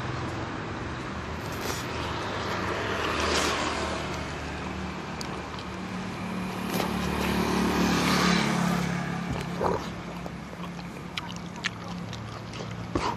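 Road traffic passing on the street, engine hum and tyre noise swelling twice, louder the second time about two thirds of the way in. A few short sharp clicks near the end.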